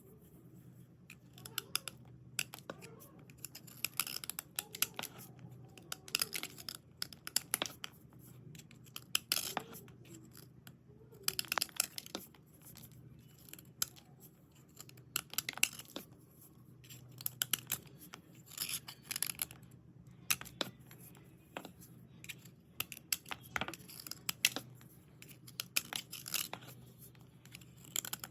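Dry white slate pieces being scraped and rubbed, giving short gritty, scratchy strokes in irregular bursts, with quieter pauses between them.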